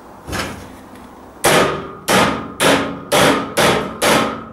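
A soft knock, then six sharp knocks about two a second on a steel boltless shelving frame, each with a short metallic ring, as a part is knocked down into its slot.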